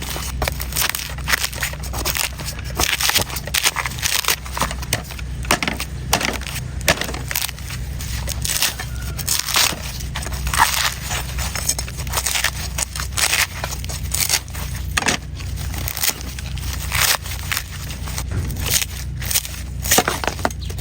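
Sharp knife cutting and shaving into a coconut's husk and shell: a run of irregular crunching cuts and scrapes, over a steady low hum.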